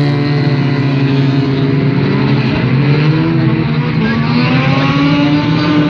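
Race car engines running at speed on a dirt track, with a steady pitch that sags slightly, then climbs over the second half as the cars accelerate.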